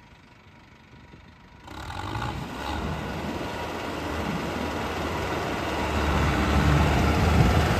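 Near quiet for the first couple of seconds, then a tractor's diesel engine comes in suddenly and runs steadily, growing gradually louder.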